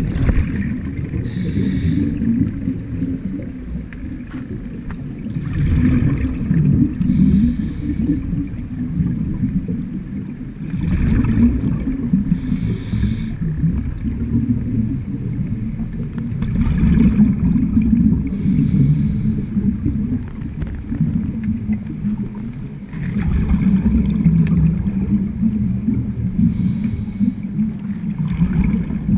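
Scuba diver's breathing through a regulator, heard underwater: a brief high hiss on each inhale, then a rumbling gush of exhaled bubbles, repeating about every five to six seconds over a constant low underwater rumble.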